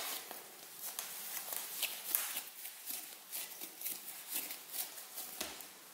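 Yeast dough being kneaded and pressed by hand on a countertop: faint, irregular soft pats and squishes, several a second.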